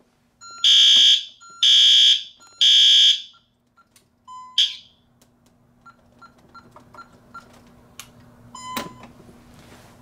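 Fire alarm horn sounding three loud buzzing pulses about a second apart, then falling silent. Afterwards come short beeps from the Honeywell 6160CR-2 keypad as its keys are pressed to silence and reset the alarm, with a longer beep near the end.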